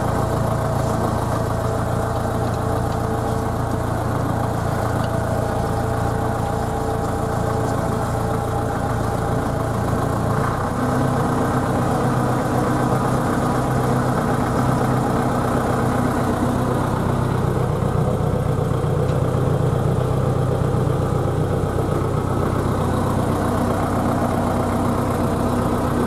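Tractor engine running steadily, heard from inside the cab; about ten seconds in its note changes and then holds steady again.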